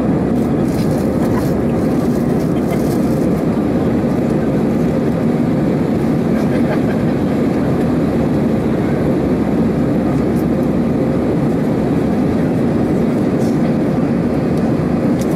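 Steady cabin roar of an Airbus A320-214 climbing after takeoff, heard inside the cabin over the wing: the CFM56 turbofans and rushing airflow make a loud, even rumble with a faint steady hum.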